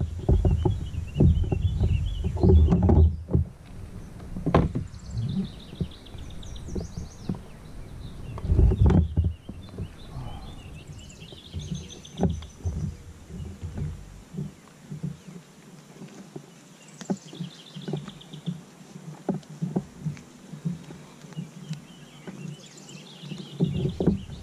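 Wind buffeting the microphone in uneven gusts, with scattered knocks from the kayak, heaviest at the start and again about nine seconds in. Songbirds on the shore sing short trilled phrases every few seconds throughout.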